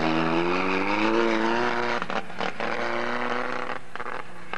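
Off-road race car's engine accelerating, its pitch rising over the first second and then holding steady, with a few brief dropouts.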